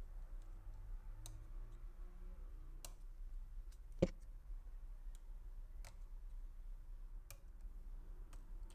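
Scattered light clicks and taps of a small tool on an opened iPhone 12 as its flex cable connectors are unplugged. About six clicks, the loudest about four seconds in.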